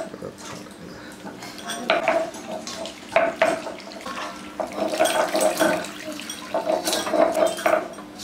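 Metal kitchen utensils clattering and scraping in irregular bursts, with sharp knocks and some water handling mixed in.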